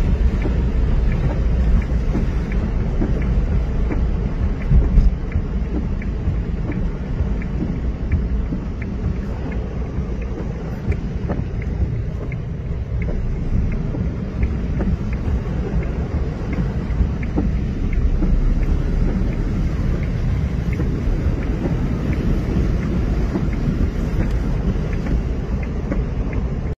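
A car driving through heavy rain, heard from inside the cabin: a steady low rumble of the car and its tyres on the wet, flooded road, with faint scattered ticks of rain.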